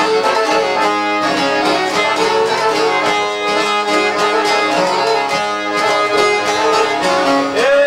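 Instrumental passage of an Albanian folk song: ensemble music with a quick, even run of notes. Near the end a note slides up into a long held tone with vibrato.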